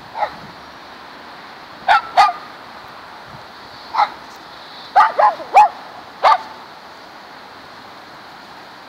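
A dog barking in short, high barks: about eight in all, spaced out, with a quick run of three about five seconds in.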